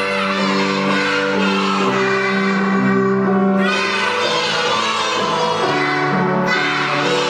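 A class of young children singing a children's song together over a musical accompaniment.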